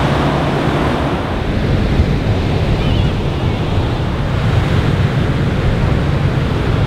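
Ocean surf washing onto a sandy beach, with wind rumbling on the microphone.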